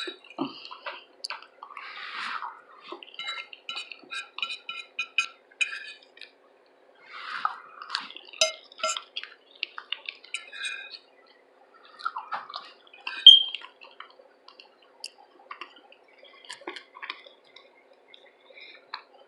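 Close-miked eating: wet chewing and lip-smacking in bursts, with light clicks and clinks of cutlery on a plate. One sharper, louder clink comes about thirteen seconds in.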